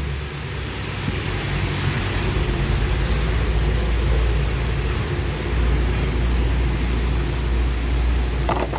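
Steady roar and hiss of wok cooking at a street-food stall: the gas burner's flame rumbling under the frying sizzle, with a few light metallic clinks near the end.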